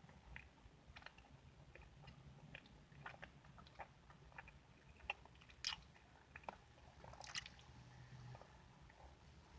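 Faint close-miked chewing and mouth sounds from eating a fruit sandwich: soft, irregular clicks and smacks, with slightly louder bites about halfway through and again a couple of seconds later.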